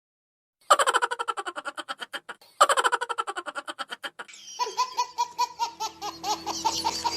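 Laughter sound effects: two bursts of rapid, staccato laughing, each starting loud and fading away over about two seconds. About four seconds in, a different, higher, quick-pulsing giggle takes over, with a steady tone beneath it.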